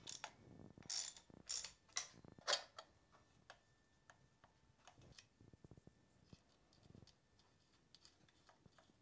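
Metal valvetrain parts clicking and clinking as they are handled and fitted on a Porsche 912 cylinder head. A few sharper clicks come in the first three seconds, then faint scattered ticks.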